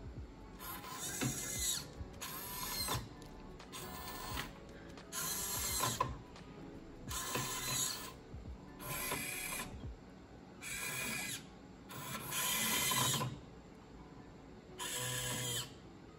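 Servo motors in a 3D-printed robotic hand whirring in about nine short bursts, each half a second to a second and a half long with quiet gaps between, as the fingers close and open.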